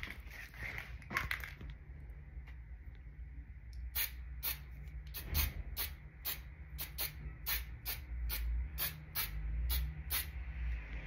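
Aerosol can of brown spray paint sprayed in short hissing bursts, about two or three a second, starting about four seconds in, with a few single bursts before that.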